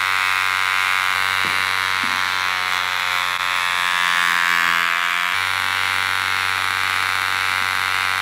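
Small 3-volt DC motor with an eraser fixed off-centre on its shaft, buzzing steadily as it shakes a scrub-brush robot on a stone countertop. Its tone shifts slightly about five seconds in.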